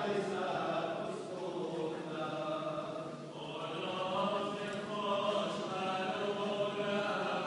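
Voices singing a liturgical chant, with held notes that shift in pitch every second or so.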